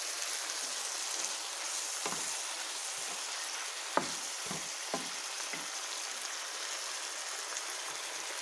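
Beef and chopped vegetables sizzling in a non-stick frying pan, a steady hiss. About two seconds in and again from about four to five and a half seconds, a wooden spatula knocks and scrapes against the pan a few times as the food is stirred.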